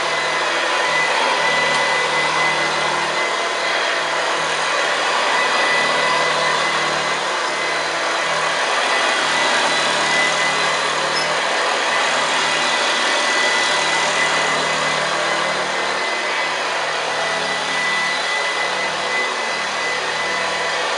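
Hoover Senior 652A upright vacuum cleaner running steadily with its two-speed motor locked on the high, roughly 600-watt setting, its beater bar grinding the carpet. A loud, even rush of air with a steady high whine over it.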